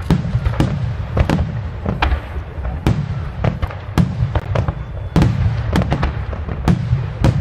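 Aerial firework shells bursting in a steady barrage: sharp bangs one or two a second, some close together, over a continuous low rumble.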